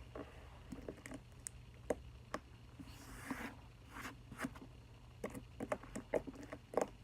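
Slime being handled and squished: irregular small clicks and pops, with a brief soft rustle about three seconds in.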